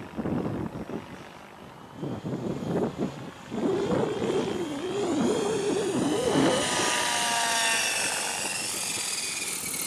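Blade 700 X Pro electric RC helicopter in flight, its rotor and motor whine wavering up and down in pitch, then falling steadily over the last few seconds. Gusts of wind buffet the microphone in the first few seconds.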